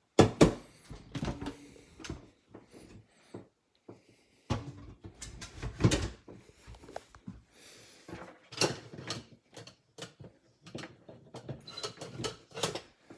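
Metal inner pot of a stainless steel electric rice cooker being handled and set into the cooker, with a series of irregular clunks and knocks of pot against housing. The loudest knock comes right at the start.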